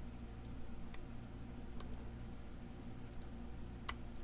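A few sparse, faint clicks of a lock pick working the pin stacks of a challenge lock held under tension, with one sharper click near the end, over a steady low hum.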